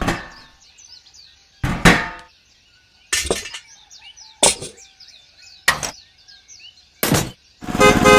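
Six sharp, hard clinks spaced about a second and a half apart: miniature bricks being tapped and set in place while a mini brick wall is laid. Faint bird chirps sound between the taps.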